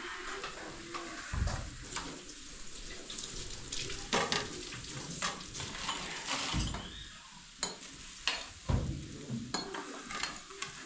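Irregular knocks and clinks, a dozen or more, some sharp and loud, over a steady hiss.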